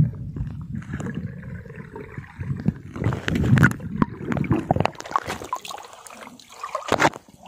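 Water sloshing and gurgling as a hooked fish is hauled up on a handline and breaks the surface beside the boat, with a few sharp knocks.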